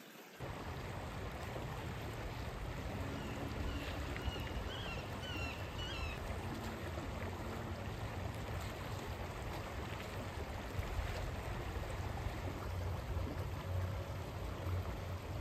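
Shallow stream flowing over rocks: a steady rush of running water. A bird chirps a few short high notes about three to six seconds in.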